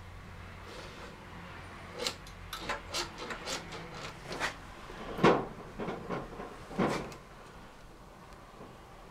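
Rear drum brake shoes and their return springs being worked off the backing plate of a BMW paralever airhead, giving a run of clicks and knocks between about two and seven seconds in, with two louder knocks about five and seven seconds in.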